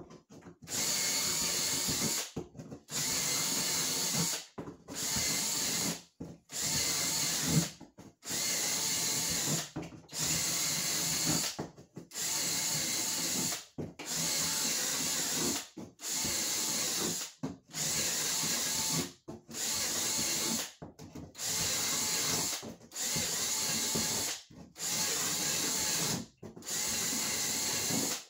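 Cordless drill boring a row of holes into the top plywood layer of a camper floor: about fifteen short runs of about a second and a half each, roughly one every two seconds, with brief stops as the bit is moved to the next hole.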